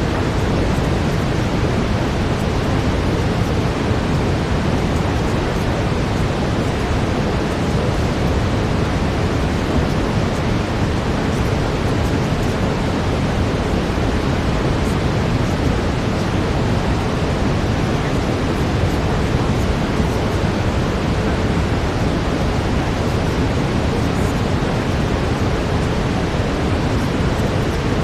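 Steady brown noise, a dense even hiss weighted toward the low end, running unchanged. A faint steady tone near 432 Hz sits within it.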